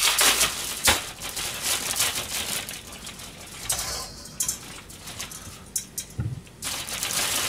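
Kitchen handling sounds: scattered clicks and knocks with some rustling as things are moved about and a small metal strainer bowl is picked up. The loudest knocks come near the start and about a second in.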